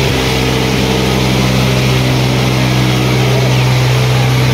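Tractor diesel engine running steadily at an even speed.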